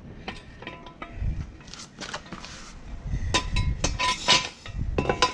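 A metal jack stand clinking and clanking as the ATV is lowered off it. Several sharp metallic clinks, some with a brief ring, come in a cluster about three to four and a half seconds in.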